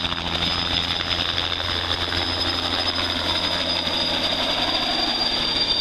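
Bell 206 helicopter passing low overhead: a steady high turbine whine over the regular beat of the main rotor. About four seconds in, a tone slides downward and the rotor beat fades as it moves away.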